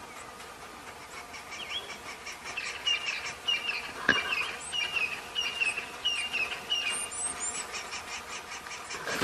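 Birds chirping: a short chirp repeated about twice a second, with a few higher chirps near the end, over a faint steady outdoor background. One sharp knock about four seconds in.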